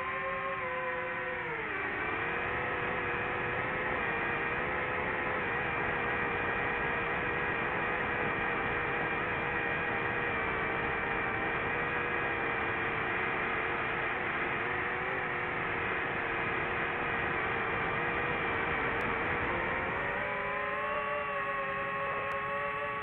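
DJI FPV drone's motors and propellers whining. The pitch drops about a second and a half in as the throttle comes back, holds steady, then rises again near the end.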